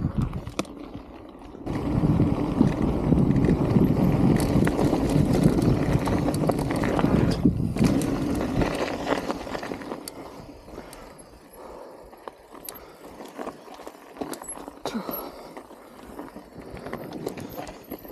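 Mountain bike rolling down a dirt and gravel track: a loud steady rush of riding noise for the first several seconds, then quieter rolling with scattered clicks and rattles of gravel and bike parts.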